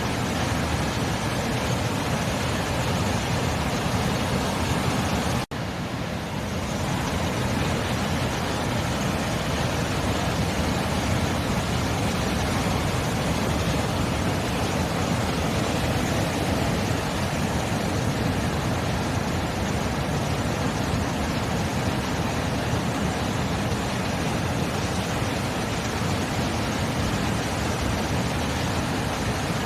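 Sea surf making a continuous, even rushing noise with no separate wave breaks standing out. It cuts out for a split second about five and a half seconds in.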